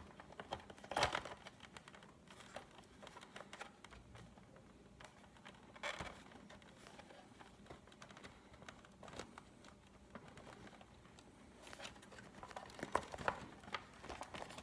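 Plastic parts of a Big Mouth Billy Bass animatronic fish being handled and fitted together: faint scattered clicks and rustles, a little louder about a second in, about six seconds in, and near the end.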